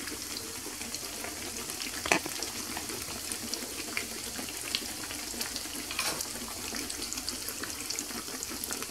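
Apple beignets (rolled yeast dough) frying in a shallow pan of hot oil over medium heat: a steady sizzle dotted with small crackles, with one sharper click about two seconds in.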